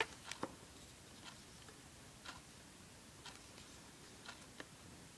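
Faint, irregular small clicks and ticks of rubber loom bands and a plastic loom hook being handled by hand, as bands are threaded through a rubber-band charm; the sharpest click comes right at the start.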